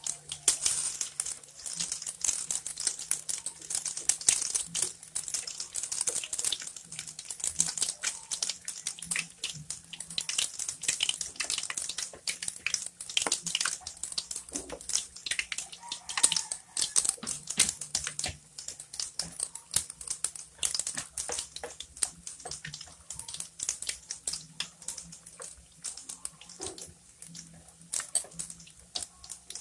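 Pork patties deep-frying in hot oil in a wok: a steady sizzle thick with rapid crackling and popping.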